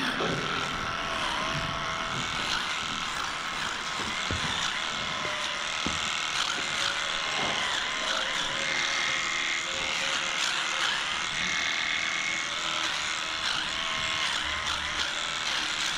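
Electric animal clippers running while trimming the hair of a cow's tail switch; the pitch of their hum dips and recovers every few seconds as the blades bite into the hair.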